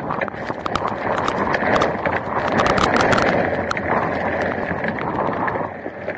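Wind and heavy rain battering a 360 camera, with drops striking its housing in a rapid, irregular patter of sharp clicks over a steady rush.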